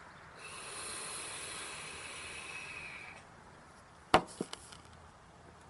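Steady airy hiss with a faint high whistle for about three seconds: breath pushing vape vapor through a hose into the engine's evap and intake for a DIY smoke test. A sharp click follows about four seconds in, then two lighter taps.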